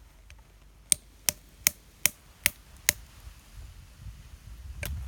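Six sharp taps in quick succession, about one every 0.4 seconds, then one more near the end, as old WWII rifle and submachine-gun cartridges are knocked apart for their powder.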